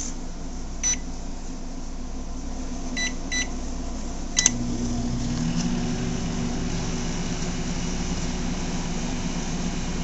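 Microwave oven keypad beeping once, then twice, followed by a click as the oven starts. It then runs with a steady hum while heating water on a two-minute cycle.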